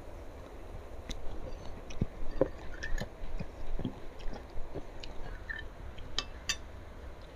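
Close-up eating sounds: a person chewing and tearing meat off a large beef rib, with irregular wet smacks and clicks. Two sharp clicks come about six seconds in.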